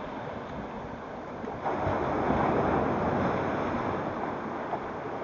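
Sea waves washing onto the rocky shore: a steady wash of surf, with one wave swelling up about a second and a half in and dying away again, and some wind on the microphone.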